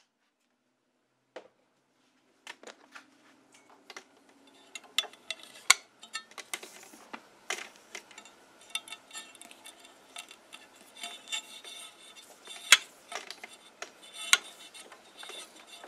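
Small clicks, taps and rubbing of hands working a rubber grommet into a hole in a sheet-metal panel and feeding a wire through it. The clicks begin about a second and a half in and grow busier toward the end.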